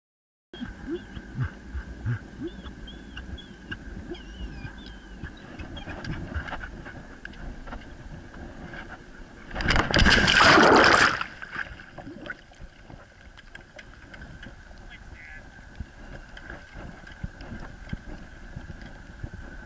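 Water sloshing and knocking around a pedal boat, with a loud splash of water lasting about a second and a half around ten seconds in. After it comes water lapping and gurgling close to the microphone as the dog carrying the camera swims.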